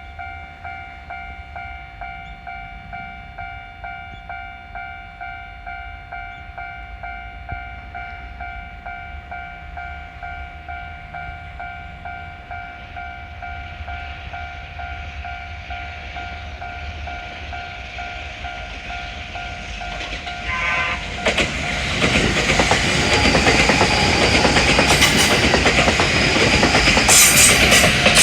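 Japanese railroad crossing's electronic warning bell ringing "kan-kan" at about two strokes a second. About twenty seconds in, a Kintetsu Shimakaze limited express train sounds its horn briefly, then passes loudly with wheels clattering over the rail joints while the bell keeps ringing.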